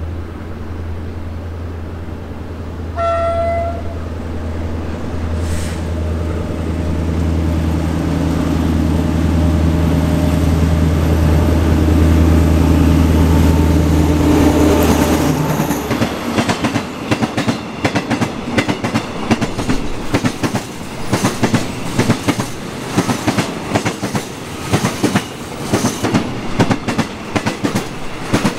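Diesel-electric locomotive 4307 of an oil tank train approaching and passing, its engine drone growing louder, with one short horn blast about three seconds in. Once the locomotive has gone by, about halfway through, the engine fades and the loaded tank wagons follow with a steady clickety-clack of wheels over the rail joints.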